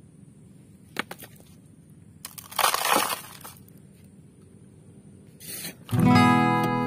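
Sand and gravel being poured into the plastic bed of a toy dump truck: a faint click about a second in, a gritty rattling pour lasting about a second near the middle, and a shorter, fainter one later. Acoustic guitar music starts near the end.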